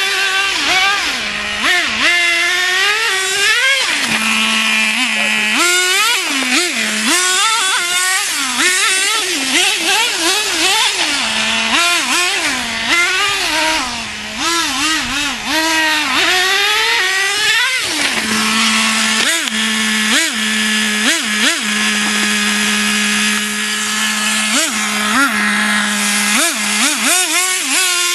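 Traxxas T-Maxx 2.5 RC truck's small nitro two-stroke glow engine revving up and down over and over in quick sweeps. Between the sweeps it drops back to a steady lower note, held for about ten seconds in the second half with only short blips of throttle.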